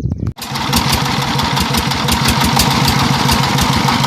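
ZS1125 single-cylinder diesel engine running steadily at idle with an even, rapid beat, just after its camshaft gear was retimed to cure a ticking sound and misfiring. The sound starts abruptly about a third of a second in.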